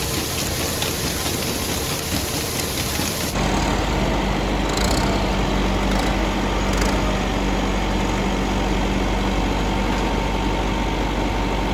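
Farm feed machinery running: a steady rattling hiss, then from about three seconds in an engine running steadily at idle with a low hum.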